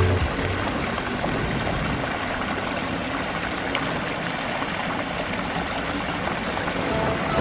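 A pondless waterfall running: water splashing and rushing in a steady stream.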